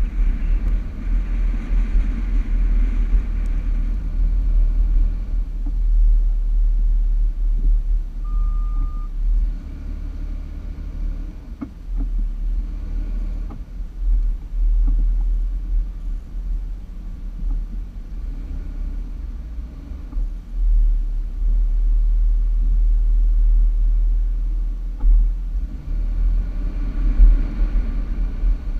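Toyota Land Cruiser driving over sand dunes: the engine runs under a deep, continuous rumble, louder at the start and again near the end. A short single beep sounds about eight seconds in.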